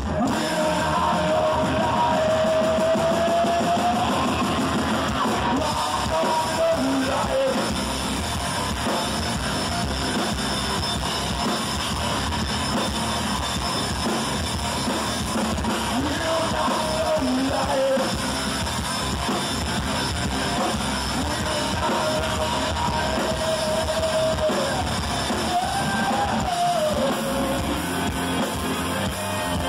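Live heavy rock band playing: distorted electric guitars, bass and a drum kit, loud and unbroken, with a lead line that holds and bends notes over the top.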